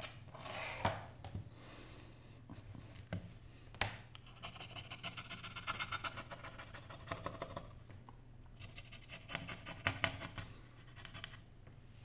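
A few light clicks and taps as small parts are handled, then a wooden toothpick scratching against the inside of an open iPhone 6 in two runs of quick, rapid strokes.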